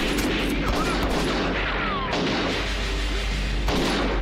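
Film soundtrack gunfire: repeated pistol shots in a shootout, with a couple of short falling whines between them and music underneath.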